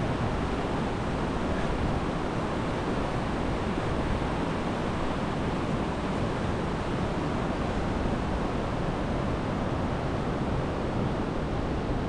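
Steady rushing of flowing river water, an even noise with no breaks.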